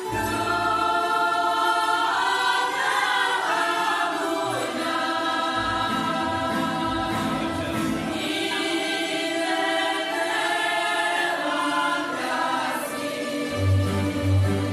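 Mixed choir of men's and women's voices singing held chords, accompanied by a tamburica ensemble with plucked tamburicas, bugarija and a bass.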